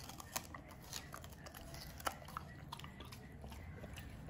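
Golden retriever chewing and biting on a stick of purple sugarcane, with irregular sharp crunches as its teeth tear into the fibrous cane, the loudest about two seconds in.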